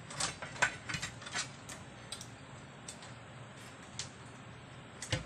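Irregular metal clicks and knocks as a finned heatsink module with its circuit board is worked loose and lifted out of a power amplifier's chassis.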